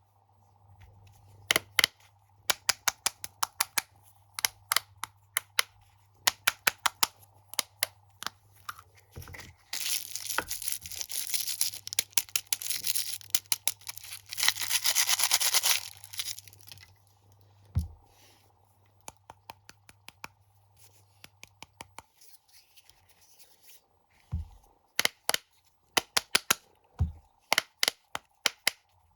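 Close-miked crunching of crunchy cheese snacks being bitten and chewed: quick runs of sharp crackles, with a denser stretch of crackling or crinkling about ten seconds in that lasts several seconds.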